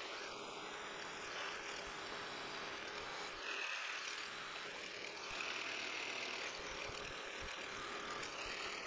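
Milling machine spindle running steadily while a quarter-inch twist drill cuts a pilot hole into a hot-rolled steel block, with a faint high whine from the cut coming and going partway through.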